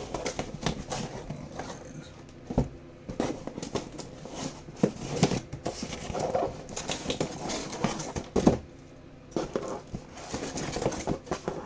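Irregular clicks, taps and knocks of objects being handled and set down on a tabletop, with a few sharper knocks about two and a half, five and eight and a half seconds in.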